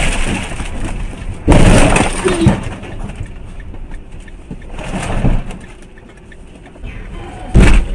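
Vehicle collision: a sudden loud crash about a second and a half in that dies away over about a second, a weaker crash near the middle, and a short sharp bang near the end.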